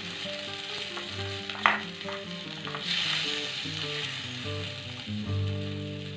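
Food sizzling as it fries in a miniature pan, the sizzle swelling about three seconds in, with one sharp click of a utensil against the pan near the two-second mark.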